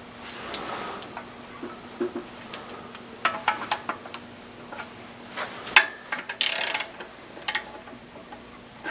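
Hand ratchet clicking in short runs and single clicks while the camshaft bearing cap nuts are tightened a quarter turn at a time, alternating from cap to cap. A quick run of clicks comes about six and a half seconds in.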